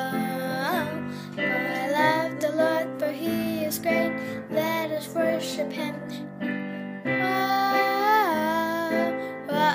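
A girl singing a self-written worship song, with a wavering, drawn-out melody over a steady instrumental accompaniment.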